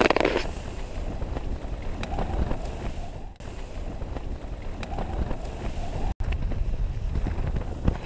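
Strong wind buffeting the tent and rumbling on the microphone, with a few faint knocks.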